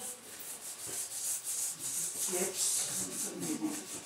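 Raw potatoes being grated by hand on a metal grater: repeated rasping strokes.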